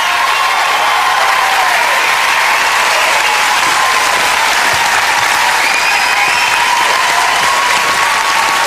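Studio audience applauding, loud and steady.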